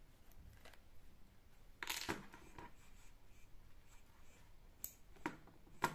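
Faint rustling as yarn is drawn through a knitted toy's fabric and the toy is handled: a few brief scratchy swishes, the longest about two seconds in and quick ones near the end.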